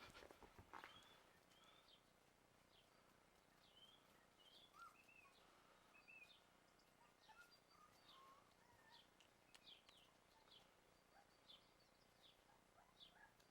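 Faint, short high-pitched chirps and squeaks from small animals, roughly one a second, over a very quiet background.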